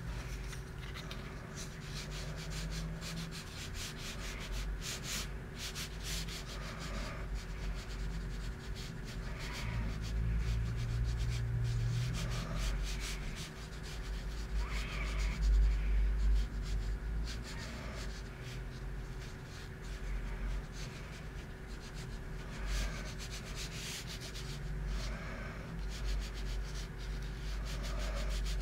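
Graphite pencil shading on paper: many quick, scratchy back-and-forth strokes rubbing tone into a sketch.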